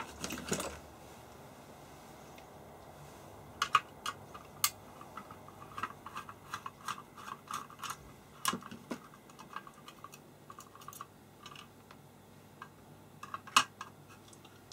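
Scattered light clicks and taps of a small screw being worked out of a thin metal shield cover on a circuit board, with the board being handled. One sharper click comes near the end.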